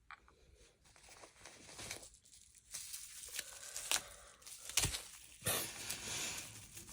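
Packaging crinkling and tearing as a makeup product is unwrapped by hand, in a run of irregular rustles with the loudest burst about five seconds in.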